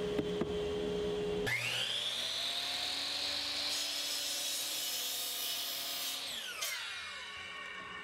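A steady hum, then about a second and a half in a miter saw's motor starts with a whine that rises and holds. The blade cuts through a pressure-treated 1x4 in a hissier stretch in the middle, and the motor winds down with a falling whine near the end.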